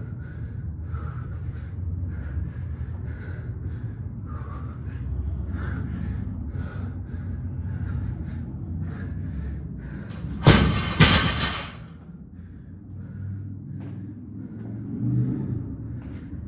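A loaded barbell dropped onto the floor: two loud thuds about half a second apart as it lands and bounces, over a steady low rumble.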